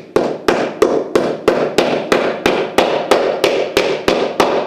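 A hammer tapping small white plastic fittings into a cabinet panel: a steady run of about fourteen sharp, even knocks, roughly three a second, each with a short hollow ring from the board.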